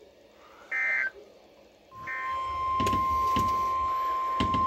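Emergency Alert System end-of-message data bursts: two short, raspy digital chirps about a second and a quarter apart. With the second one, a steady single-pitched weather-radio alert tone starts and holds, announcing the next warning. A few sharp clicks sound under the tone.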